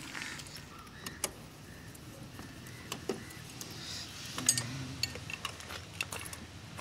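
Scattered light metallic clicks and clinks of a hand spanner working bolts on a scooter's frame, irregular and spread throughout.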